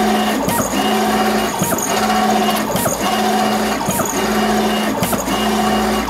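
FastJet II wide-format inkjet plotter printing on a paper roll, fitted with a single HP ink cartridge. It runs in repeated passes about once a second, each a steady motor whine ended by a short click.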